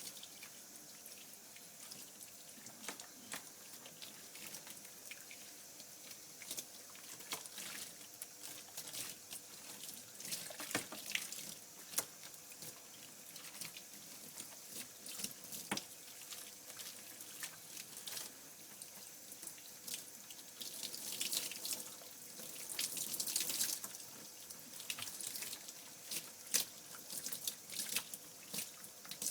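Running water splashing and dripping in a bath as soap is rinsed out of a dog's coat. It is a steady hiss full of small splashes and drips, louder for a few seconds near the end.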